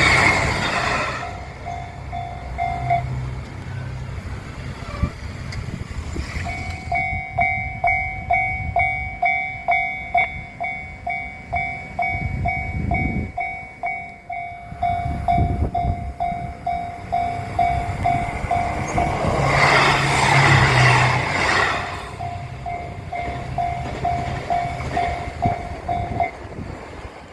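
Japanese railway level-crossing alarm ringing a repeating electronic ding, about two strikes a second, while a JR train passes. The train is loud at the start and again about 20 seconds in. The alarm stops shortly before the end.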